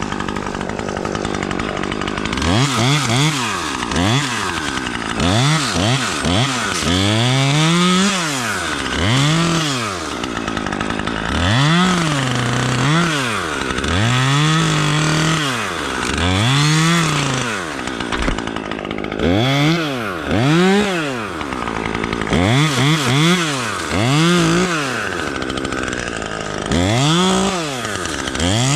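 Chainsaw revved up and let off again and again, about twenty short bursts of rising and falling pitch. A few are held at full speed for a second or so.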